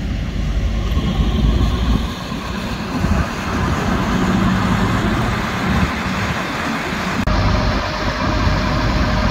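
Kenworth T360 tilt tray truck's diesel engine running steadily. After a cut about seven seconds in, a steady whine sounds over the engine.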